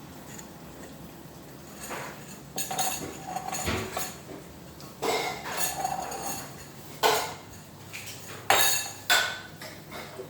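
Dishes and cutlery clinking and clattering as they are handled, in a string of separate knocks. The loudest come about seven and about eight and a half seconds in.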